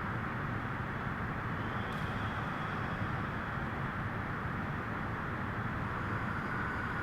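Steady background noise: an even hiss over a low rumble, unchanging throughout, with no distinct event.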